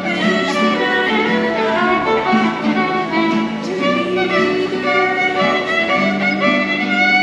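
Violin playing a melody over acoustic guitar accompaniment, the violin the most prominent.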